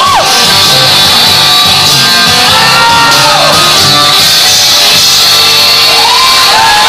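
Loud music with audience members whooping and shouting over it, with whoops about three seconds in and again near the end.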